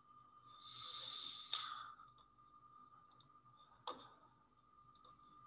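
Near silence on a voice-call microphone: a faint steady thin tone, a soft hiss about a second in, and a few faint clicks, the clearest about four seconds in.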